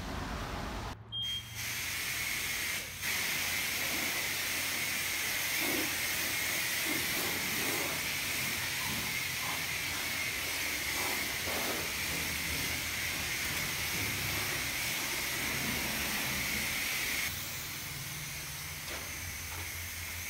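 Self-serve car wash high-pressure wand spraying water with a steady hiss. The hiss drops somewhat and turns duller a few seconds before the end.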